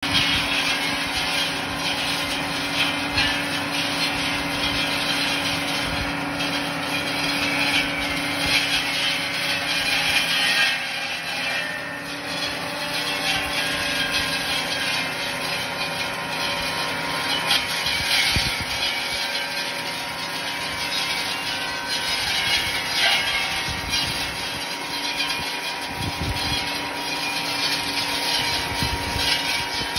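Tractor engine running steadily while its boom-mounted shelter-belt trimmer cuts through a tall hedge, the engine's steady hum under the noisy whirr and rasp of the cutting head chewing through branches.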